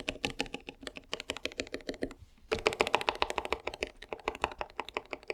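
Low-profile keyboard with Kailh Choc V1 switches being typed on quickly: a fast run of key clicks with a short pause about two seconds in. Its stabilizers are damped with the cotton-swab mod.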